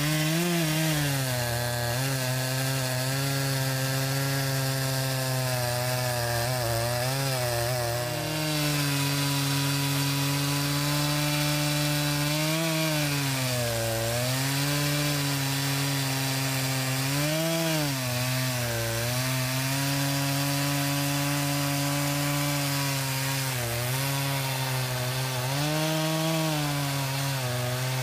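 Echo CS-590 Timber Wolf two-stroke chainsaw running hard while cutting into a large tree stump. Its engine pitch dips again and again as the chain bites into the wood under load, then climbs back.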